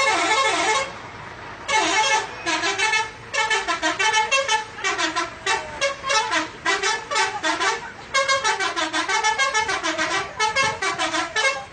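Indonesian multi-tone 'telolet' bus horn playing a rapid tune in short blasts, the pitch stepping up and down, with a pause of about a second near the start.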